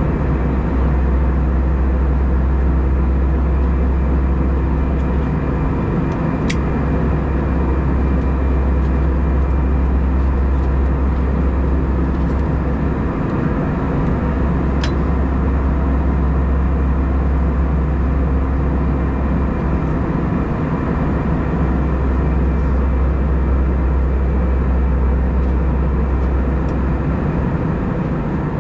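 Airbus A320 passenger cabin noise in flight: a steady low rumble and hiss of engines and airflow, with a few faint steady tones and two small clicks.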